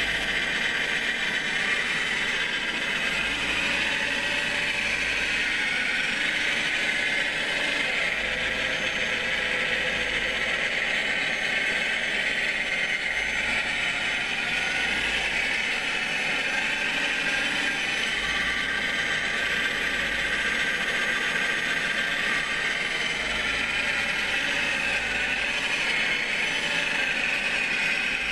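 Scale model Cat 966 wheel loader's small electric motors and gears whirring steadily as it drives back and forth and works its bucket.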